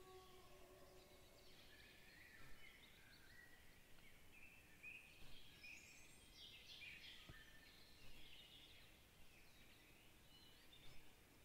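Faint woodland birdsong: several birds chirping and trilling over a quiet background.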